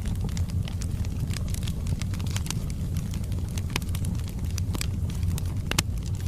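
Wood fire burning in a fireplace, with a steady low rumble of the flames and frequent sharp, irregular crackles and pops from the burning logs.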